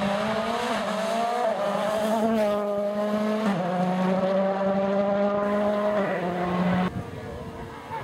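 Rally car engine at high revs as the car passes and pulls away, a strong steady note that steps down in pitch a couple of times, then cuts off abruptly about seven seconds in.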